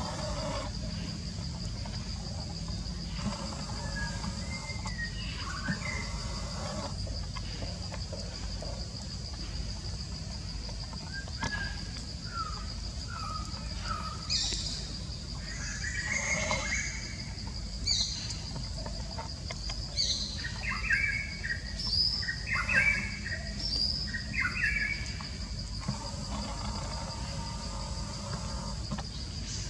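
Short high chirping calls, many in a row through the middle stretch, over a steady high-pitched whine and a low rumble.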